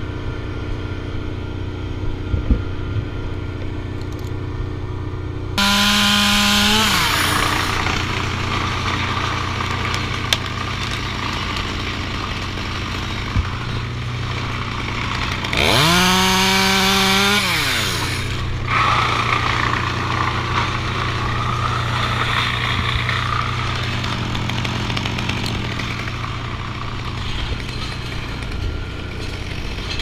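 Stihl top-handle chainsaw idling, then opened up to full throttle and cutting into a sycamore limb. It does this twice, about five seconds in and again just past halfway, with the engine note falling back toward idle after each burst.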